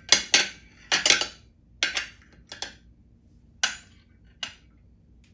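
Metal forks clinking against a white ceramic serving plate as they are set down around its edge: a series of about eight sharp clinks, each with a short ring.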